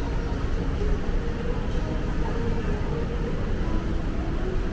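Shopping mall ambience: a steady low rumble of crowd and building noise with faint, scattered distant voices.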